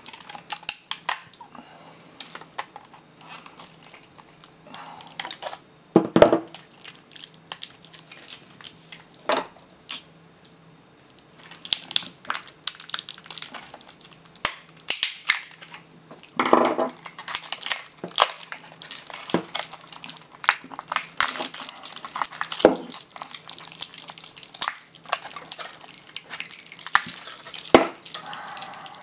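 A laptop battery pack's plastic shell and 18650 cells being pried apart with a screwdriver: a run of clicks, cracks and crinkling, with a few louder knocks, busier from about halfway.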